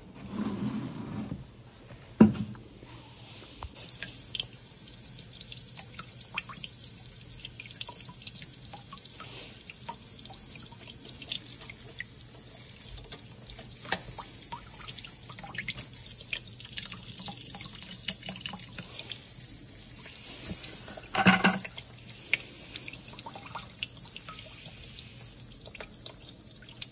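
A hot-water radiator's bleed valve being opened with a screwdriver, after a sharp knock about two seconds in: from about four seconds in, a steady hissing stream of water spatters into a plastic bucket. The radiator is being bled because the zone isn't circulating.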